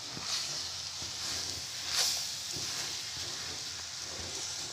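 Wooden spoon stirring a thick cocada mix of grated coconut, sugar syrup and condensed milk as it cooks down in a pan over low heat: a soft scraping and hissing that swells with the strokes, loudest about two seconds in.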